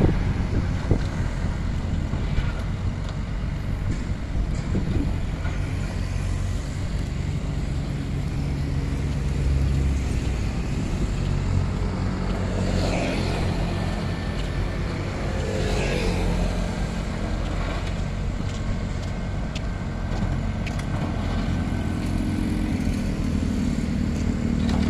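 Tatsuo wheeled excavator's diesel engine running steadily as it digs, its note swelling now and then as the boom and bucket work, with occasional knocks and clatter of stone.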